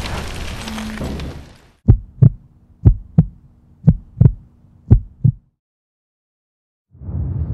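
Heartbeat sound effect: four double thumps, lub-dub, about a second apart over a faint steady drone. Before it, a rushing noise fades out in the first second or two.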